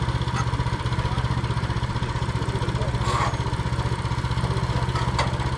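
Portable band sawmill's gas engine running steadily at an even idle, with a couple of light clicks about three and five seconds in.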